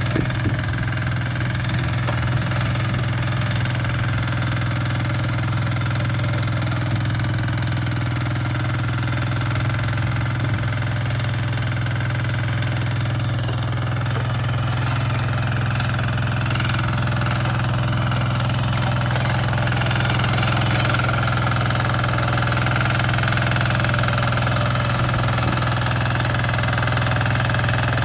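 Yağmur YET300 rotary tiller's engine running steadily at an even speed.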